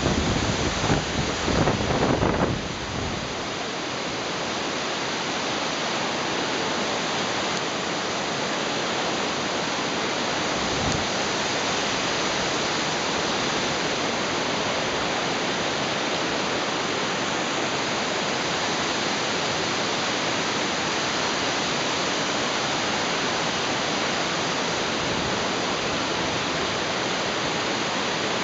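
Steady rushing of a river's rapids just below, with low buffeting on the microphone in the first few seconds.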